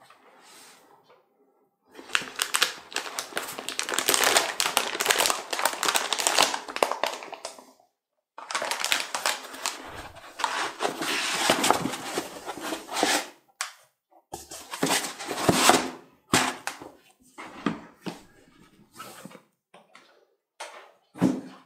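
Crinkling of a graphics card's anti-static plastic bag as the card is lifted out of its foam-lined box and handled, in two long stretches, followed by shorter scattered rustles and knocks.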